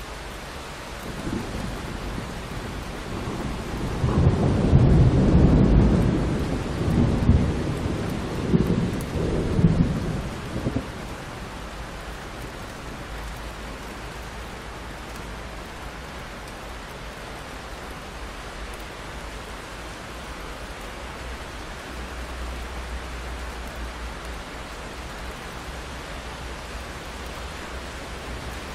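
Thunderstorm: steady rain with a long roll of thunder that builds about a second in, is loudest a few seconds later with further swells, and rumbles away after about ten seconds, leaving the steady rain.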